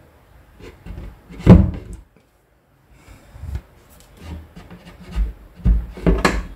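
Marine-plywood cabinet door and panels being handled: wooden knocks and rubbing, the loudest knock about a second and a half in, then a quick run of knocks near the end.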